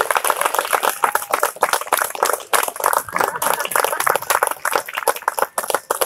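Crowd of guests applauding: dense, steady clapping from many hands.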